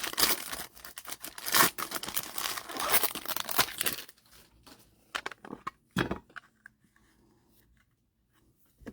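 Foil wrapper of a trading-card pack crinkling and tearing as it is ripped open, for about four seconds. After that come a few short, light taps.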